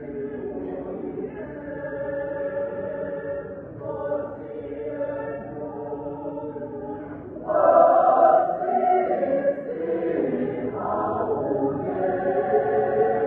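Mixed church choir singing in close harmony, holding long chords that shift every second or two; the voices swell loudly for about a second roughly halfway through.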